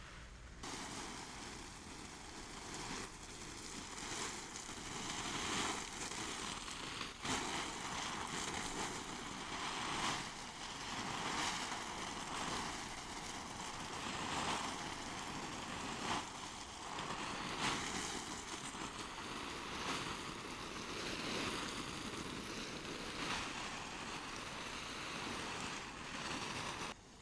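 Water spraying from a garden hose onto corn plants and black plastic mulch: a steady hiss of spray that swells and fades every second or two as the stream sweeps across the rows. It starts about a second in and cuts off suddenly just before the end.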